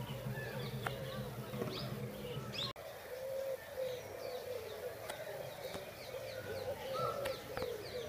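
Mixed calls of many birds in a bird park: a low wavering call repeating throughout, over short high chirps. The sound breaks off for an instant a little under three seconds in.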